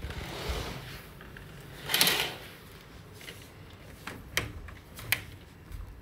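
Curtains swished open along their rail, a louder swish about two seconds in, then two sharp clicks from a glass balcony door's latch and handle.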